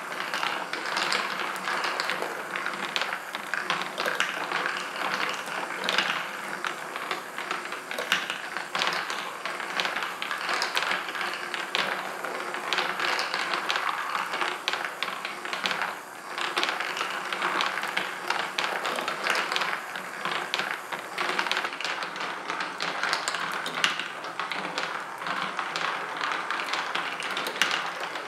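A motorized marble machine running: a steady mechanical hum under a constant stream of clicks and taps as marbles roll along its tracks and drop and knock against one another.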